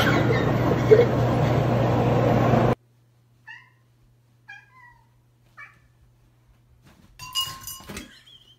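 A steady rushing noise with a low hum cuts off suddenly about three seconds in. A cat then gives three short meows about a second apart, and a louder jumble of sound follows near the end.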